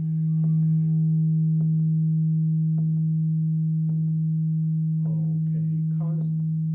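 Crystal singing bowl sounding one steady low tone with a fainter overtone above it, swelling in loudness at the start. A voice starts softly near the end.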